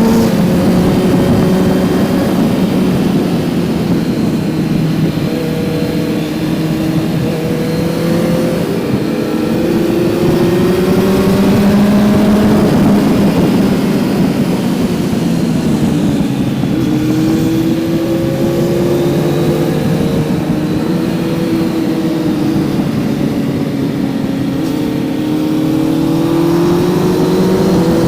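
Kawasaki Z900's inline-four engine under way. Its pitch climbs again and again through the gears, dipping briefly between climbs.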